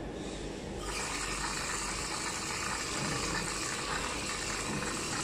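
Kitchen tap turned on just under a second in, then water running steadily into the sink.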